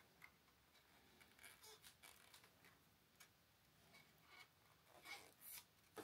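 Near silence with faint, scattered light ticks and rustles of hands fitting a display ribbon cable to an all-in-one PC's screen panel.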